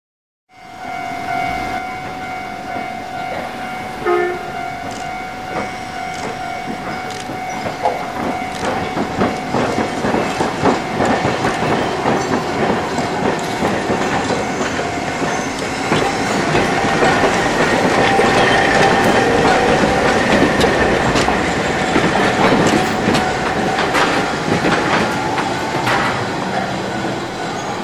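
Hankai Tramway streetcars running over a tram diamond crossing: the wheels clack again and again over the crossing gaps under a steady high whine. The sound starts suddenly about half a second in and grows louder through the middle.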